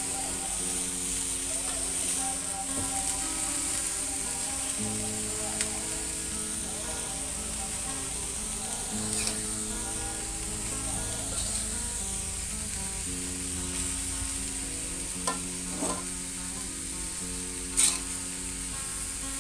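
Shredded young jackfruit stir-frying in a wok with a steady sizzle, and a metal spatula scraping through it and knocking against the pan now and then, the loudest knock near the end.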